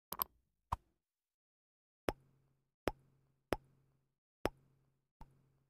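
Short, sharp click and pop sound effects of an animated logo intro: about eight clicks, two in quick succession at the start and then single ones spaced roughly a second apart, with dead silence between.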